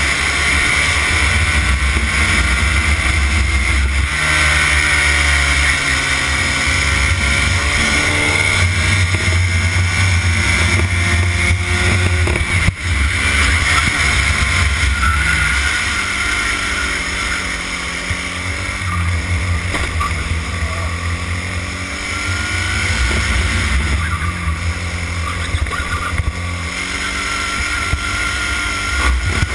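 Racing kart engine heard from on board while the kart laps the track, its revs climbing and falling again and again as it accelerates out of corners and lifts into them, with a brief drop in level about halfway through the first part.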